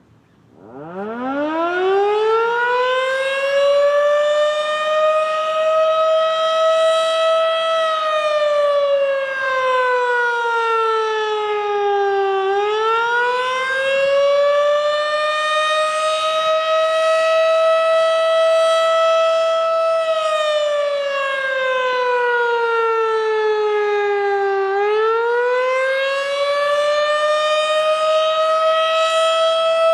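Outdoor tornado warning siren starting up, its pitch climbing from very low to a steady high tone over about five seconds. It then wails: the tone slides down slowly and climbs back up twice, holding high in between.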